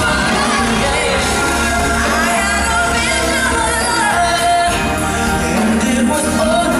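A live pop/R&B ballad: a woman's lead vocal sliding through ornamented runs over full band accompaniment, sung into a handheld microphone.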